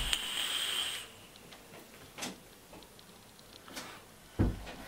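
A short hiss, then a few scattered light clicks and a heavier knock near the end.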